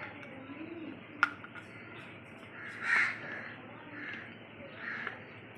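An animal calling three times, harshly, about a second apart; the first call is the loudest. A sharp click comes a little over a second in.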